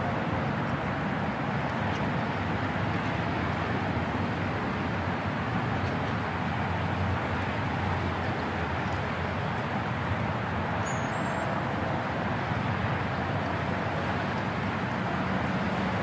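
Steady, even rumble of distant heavy construction machinery running, with no single knock or event standing out.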